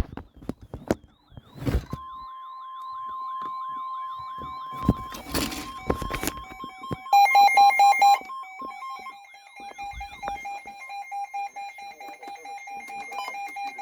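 Emergency alert tones between two weather-radio warnings, opening with a few sharp crackles. About two seconds in, a steady high tone starts, with a warbling, siren-like sweep over it. About seven seconds in comes a second of loud, rapid beeps, which settles into a steady lower tone.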